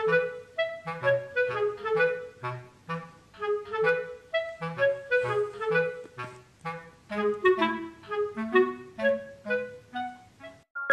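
Background music: a bouncy woodwind melody, clarinet-like, over a line of short bass notes.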